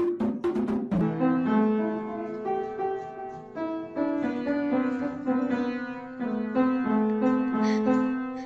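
Upright piano notes sounded by a cat pawing at the keys, struck one or a few at a time and left ringing. The first second is a quick clicking percussive beat that cuts off as the piano starts.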